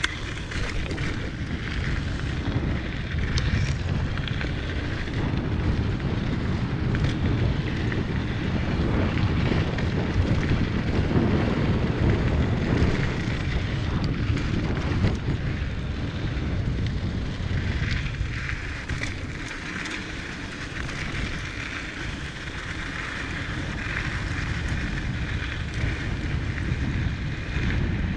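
Wind noise buffeting the microphone over the rolling rumble of a Diamondback Mission 2 mountain bike's tyres on a dirt trail on a downhill run. A few sharp clicks and rattles come from the bike.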